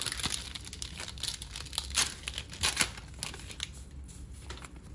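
Foil trading-card booster pack wrapper crinkling and tearing as it is pulled open by hand, a run of sharp crackles that thins out after about three and a half seconds.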